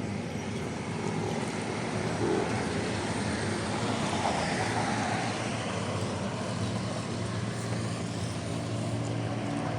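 Road traffic: a motor vehicle passes about halfway through, its sound swelling and fading, and another engine grows louder near the end.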